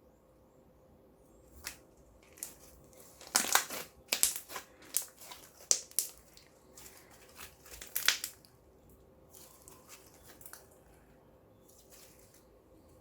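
Slime being squeezed and worked by hand, giving irregular sticky crackles and pops, thickest between about three and eight seconds in.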